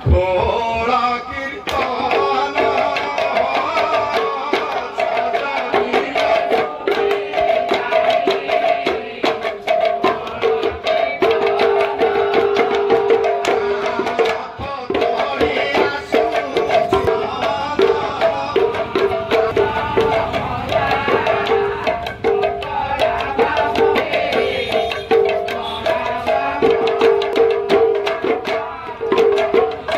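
Several mridanga (khol) barrel drums played together in a fast, dense kirtan rhythm, over a steady held melodic tone.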